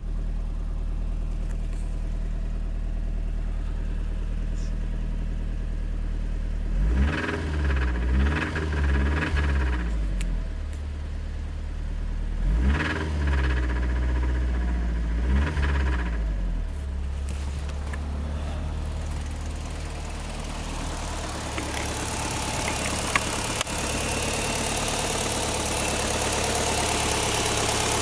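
Mitsubishi Lancer Evolution IX's 4G63 turbocharged four-cylinder idling, blipped up and back down three times about a quarter of the way in and twice more near the middle. It carries a rattle that the owner takes for head/valve rattle or rod knock, after the engine ran about 2 1/2 quarts low on oil and overheated.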